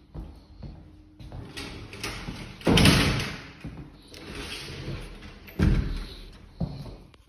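Knocks, scrapes and thuds of building work, with two heavy bangs: one about three seconds in that rings on briefly, and a sharper one near six seconds.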